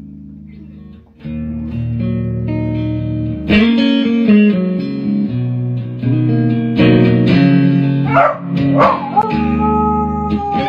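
Electric guitar played through an amplifier, a few sustained chords and single notes after a quiet first second. Near the end a dog joins in with two short rising yelps and then a long wavering howl.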